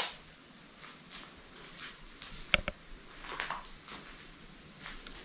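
Crickets chirping in a steady high trill, with a few sharp clicks and crunches, the loudest right at the start.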